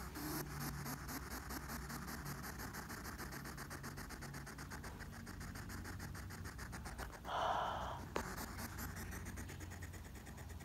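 Hedgehog curled into a ball, huffing in quick short puffs and ticks, with one louder short burst about seven seconds in.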